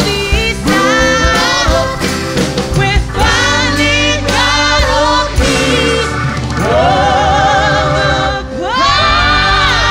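Live band playing with a woman singing lead over acoustic guitar, keyboards and drums; she holds notes with vibrato and slides up into a long high note near the end.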